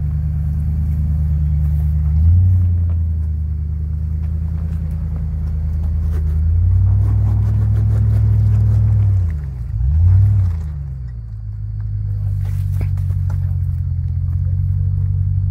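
Land Rover Discovery 2 engine pulling at low speed up a rock obstacle, the revs rising in spurts: a short rise about two seconds in, a longer higher pull a few seconds later, then a sudden dip and quick pick-up before it settles to a steady low run.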